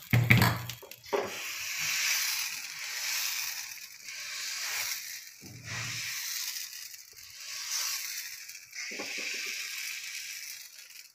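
Appam batter sizzling in a hot appam pan as the pan is tilted and swirled to spread it, the hiss swelling and fading every second or two. A few dull knocks of the pan against the stove come near the start and again midway.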